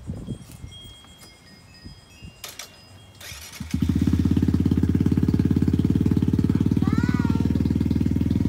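A small motorcycle's engine is started a little over three seconds in: a brief crank, then it catches at once and settles into a steady idle. Before the start there is only faint wind-chime tinkling.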